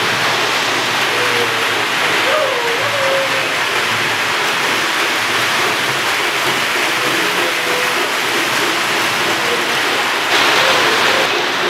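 Lionel toy train running on its track past the camera, a steady rushing whir of wheels and motor, getting louder for about a second near the end as the steam locomotive passes close.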